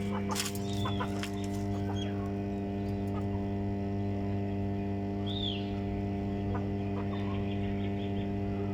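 Aseel chickens clucking now and then, with a few sharp clicks near the start and a short call about five seconds in, over a steady low electrical hum.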